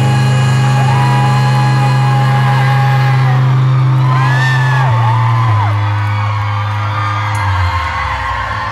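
Live rock band holding a loud closing chord that rings out through a distorted recording, with fans whooping over it; the chord shifts about five seconds in and fades near the end.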